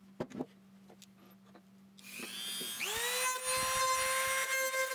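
Dremel rotary tool switched on about three seconds in, a whine that rises quickly as the motor spins up and then holds steady and high, ready to grind the wings off a metal airsoft magazine part. A few light handling clicks come first.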